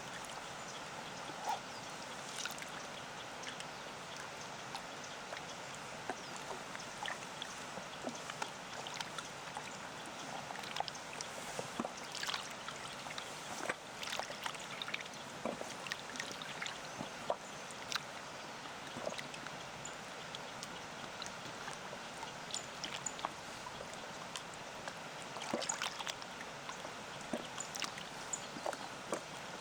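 Small waves lapping at a lakeshore, with many small, irregular splashes, over a steady rush of water from a distant waterfall.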